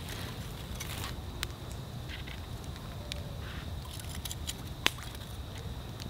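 Metal kitchen tongs clicking and handling fried catfish fillets onto bread on paper plates: scattered light clicks and soft food-handling sounds, with one sharper click about five seconds in. A steady high thin tone and a low rumble run underneath.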